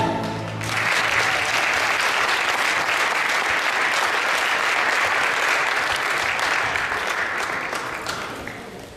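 Audience applauding, starting just under a second in as the routine's music stops, then fading away near the end.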